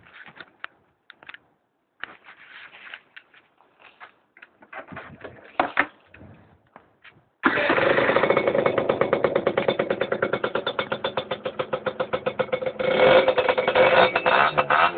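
Scooter's two-stroke engine breathing through a Doppler aftermarket exhaust: after some scattered clicks and scuffs, it catches abruptly about seven and a half seconds in and runs with a rapid pulsing beat. It gets a little louder from about thirteen seconds in.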